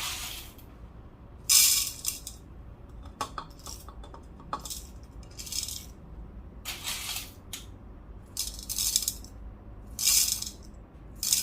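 Coffee beans rattling in short pours into a cup on a scale, about six separate bursts a second or so apart, as an 18.1 g espresso dose is weighed out.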